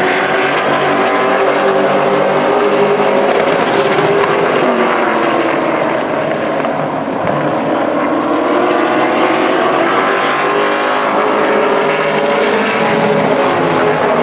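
Several Pro Late Model stock cars' V8 engines running at racing speed around the oval, their pitches rising and falling as the cars go by.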